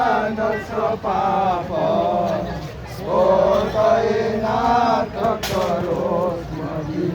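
A man's voice chanting a Hindu devotional hymn in long melodic phrases, with held, wavering notes and little or no instrumental backing.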